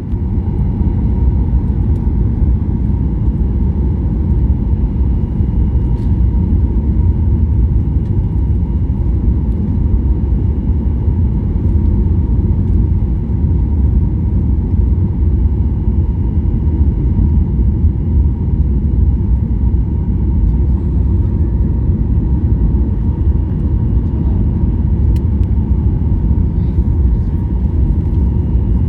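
An airplane's steady low rumble during landing, with faint steady tones above it and no rise or fall over the whole stretch.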